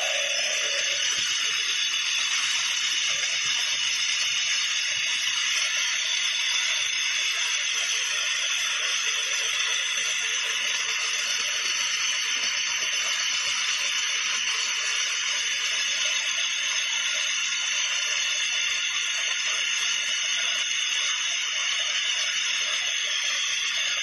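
Bolting jumbo's rock drill drilling a bolt hole into the rock, a steady, loud, high-pitched noise that does not change.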